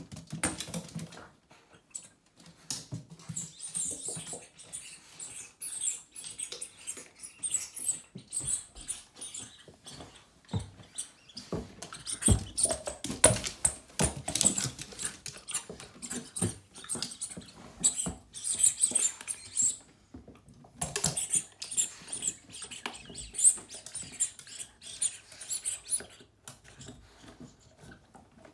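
Shiba Inus' claws clicking and pattering on wooden stairs as the dogs move about. The taps are irregular, with short pauses between runs, and are busiest about halfway through.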